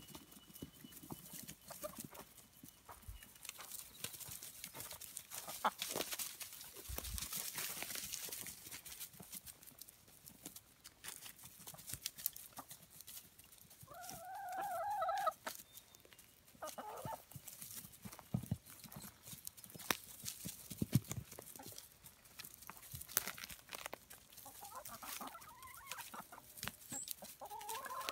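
Backyard hens clucking as they scuffle and peck over a slice of pizza, with a drawn-out squawk about halfway through and more calls near the end. Their pecking, scratching and wing-flapping make many short rustles and taps in dry grass and straw.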